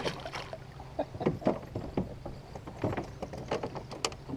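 Irregular knocks, clicks and splashy thuds of gear and hands moving about a small fishing boat, over a faint steady low hum.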